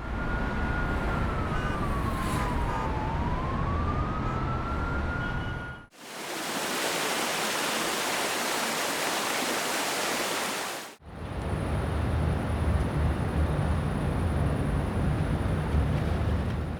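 Three ambience sound-effect beds played one after another. The first is a low rumbling bed under a distant siren that falls once and rises back. About six seconds in, an even hiss takes over. Near eleven seconds, another rumbling bed begins with a thin, steady high whine.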